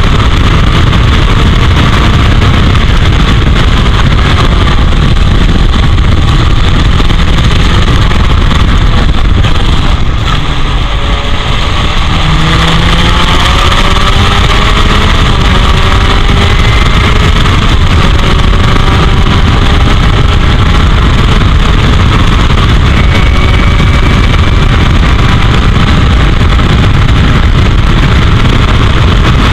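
Onboard sound of a 1984 Royale S2 sports racer's engine at full throttle, climbing in pitch again and again as it pulls through the gears, with a short lift about ten seconds in before it accelerates again. Heavy wind noise on the suction-cup-mounted camera's microphone runs under it.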